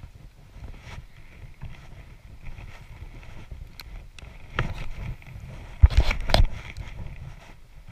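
Wind rumbling on the microphone, with clicks and knocks from a spinning rod and reel being handled and cast; the loudest knocks come about six seconds in.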